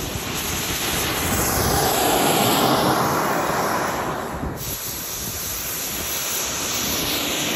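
Miniature jet turbine engine on an RC monster truck running hard: a steady jet whine and rush that sweeps down and back up in pitch as the truck drives past, with a second pass starting near the end.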